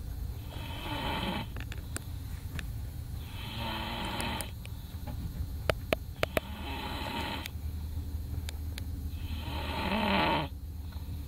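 A man snoring, four long snores about three seconds apart. A few sharp clicks come about halfway through.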